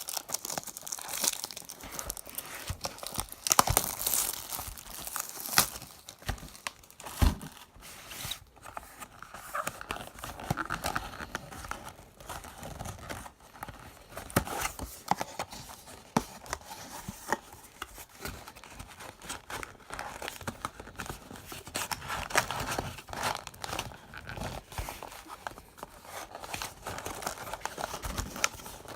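Trading card hobby box and its card-pack wrappers being torn open by hand, with irregular rips and crinkling of the packaging.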